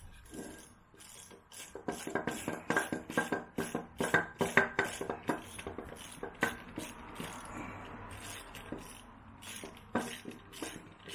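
Metallic clicking and clinking of hand tools on two nuts locked together on a motorcycle cylinder stud, as the stud is turned out of a 1978 Yamaha DT175E's cast cylinder. A quick, irregular run of clicks lasts a few seconds, then a lull, then a few more clicks near the end.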